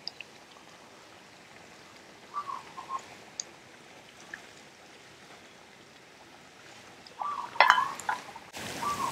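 Curry with beef simmering quietly in a frying pan, with a few short high chirps about two to three seconds in. Near the end comes a louder clatter of sharp knocks, the loudest sound here.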